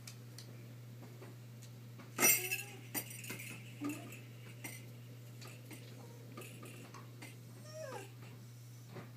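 Shiba Inu whining and crying in short outbursts, frantic over where to hide an edible chew. A loud cry comes about two seconds in, light clicks follow between the cries, and a falling whine comes near the end.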